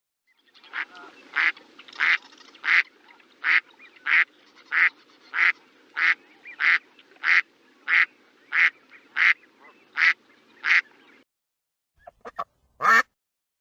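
A duck quacking in a steady, even series, about one quack every two-thirds of a second, over faint low background noise that cuts off after about eleven seconds. After a short pause come a few brief calls and one louder quack near the end.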